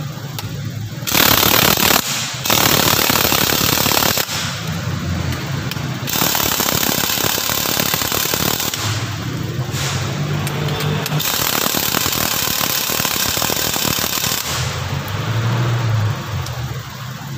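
Pneumatic impact wrench hammering on the strut's top shaft nut in several bursts of a few seconds each, a rapid rattle of blows, while the strut's coil spring is held in a spring compressor.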